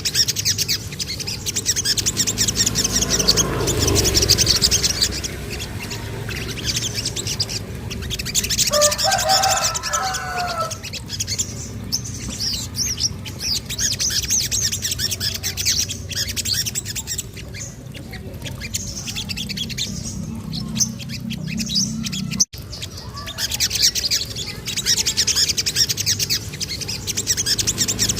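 Sogon songbird chirping in rapid high trills, with a short lower warbling call about nine seconds in. There is a steady low hum underneath, and the sound cuts out briefly about 22 seconds in.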